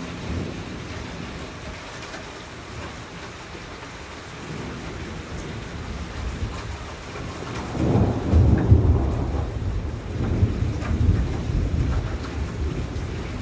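Steady rain with a low rumble of thunder that builds from about four seconds in, is loudest a little past the middle, then rolls on.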